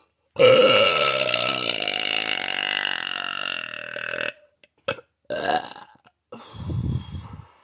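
A woman's long, loud burp of about four seconds, strongest at the start and slowly fading, followed by a few short sounds.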